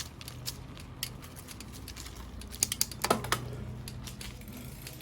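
Kona Cadabra mountain bike clicking: irregular sharp clicks over a steady low hum, with a loud cluster of them about three seconds in. The owner suspects the external bottom bracket, or the worn-out chain and cassette.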